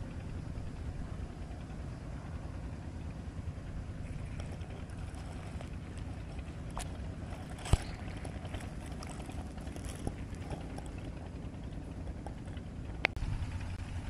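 A steady low outdoor rumble, with two sharp clicks: one a little past halfway and one near the end.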